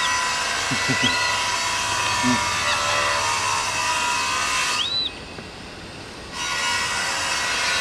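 A loud, steady hissing drone that drops away for about a second and a half past the middle, then comes back. A few short, high rise-and-fall bird chirps sound over it.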